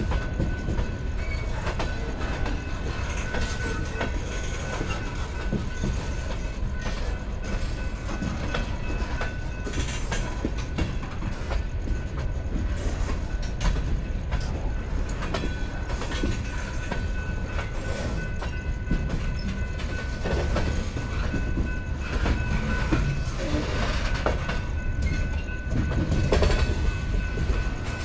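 Freight cars of a long, slow freight train (tank cars and covered hoppers) rolling past: a continuous low rumble with irregular clacks of wheels over rail joints. A faint, steady high-pitched tone runs underneath.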